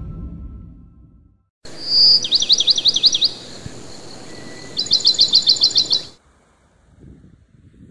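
Intro music fades out, then a songbird sings two phrases of rapid, repeated high chirps, each about a second long, over a steady hiss. The song stops suddenly at about six seconds.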